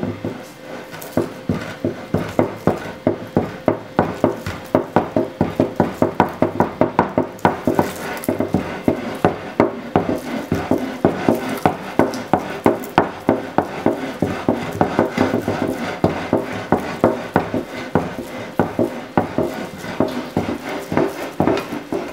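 A glass baking dish of jello rattling and knocking as it is shaken rapidly back and forth by hand, a steady run of knocks several a second.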